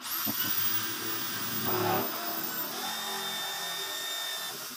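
Corded electric drill boring a hole through the side of a plastic drum. The motor starts abruptly with a high whine, bites harder about two seconds in, and is let off at the end.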